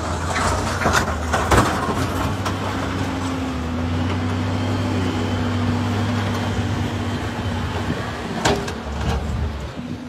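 An engine running steadily nearby, a low hum with a held tone above it, under a broad rushing noise. There are a couple of sharp knocks, about a second and a half in and near the end.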